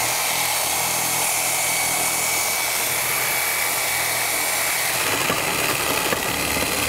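Corded reciprocating saw cutting through an old steel plumbing pipe, running steadily at full speed. Some knocking and rattling comes in over the last couple of seconds.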